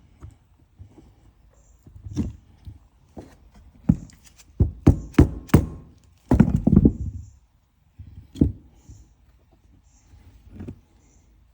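Irregular knocks and clicks of brake caliper parts being handled and fitted as the slide pins go back in. The knocks are loudest and closest together about five to seven seconds in.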